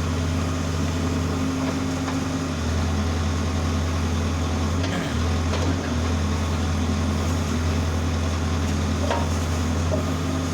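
Case 570T backhoe loader's diesel engine running steadily, its pitch dipping briefly about halfway through, with a few knocks from the working machine.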